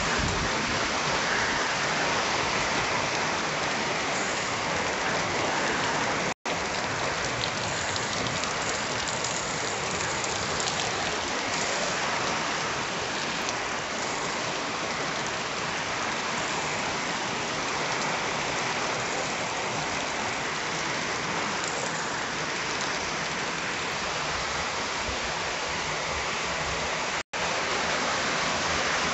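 Heavy rain pouring onto a flooded yard of puddled ground and stones, a steady dense hiss. It cuts out for an instant twice.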